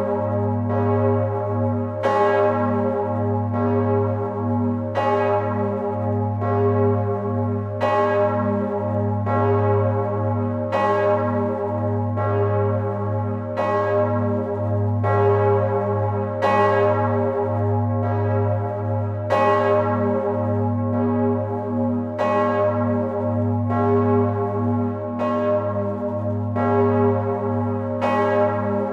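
Large bronze church bell tuned to g°, the Stephanusglocke, cast by Pfundner of Vienna in 1960, swinging full circle and struck by its clapper about once a second. Each stroke rings out bright and fades while a deep, continuous hum carries on underneath. It is heard from right inside the bell chamber.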